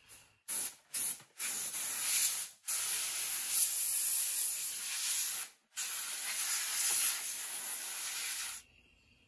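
Compressed-air blow gun hissing: three short puffs, then three long blasts of a few seconds each, blowing tumbling media off small steel nuts and studs in a plastic basket. It stops about a second before the end.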